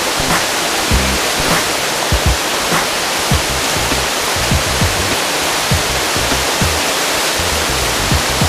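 Rushing whitewater of river rapids, mixed with background music that carries a bass beat.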